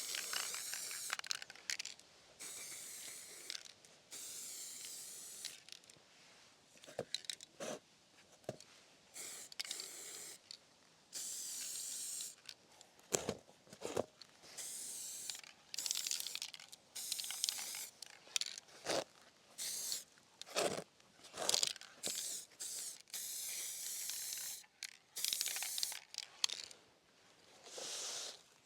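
Aerosol can of black heat-resistant spray paint hissing in many short bursts, with a few light knocks in between.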